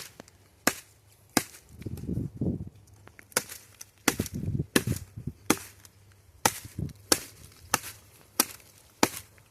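Small camp hatchet chopping into a tree branch: about eleven sharp blows, roughly one every two thirds of a second, with a short pause after the first two.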